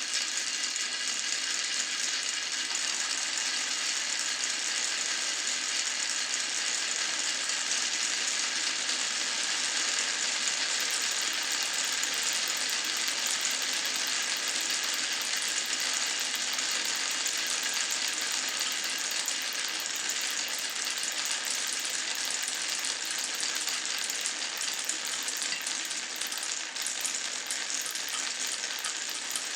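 Many glass marbles rolling and clicking along a marble-run track at once, an unbroken dense clatter.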